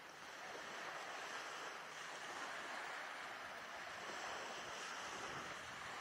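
Surf washing onto the beach, a steady hiss without any clear individual wave breaks.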